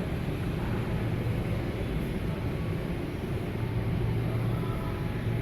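Steady low hum and rumble of a large store's background noise, with no distinct events.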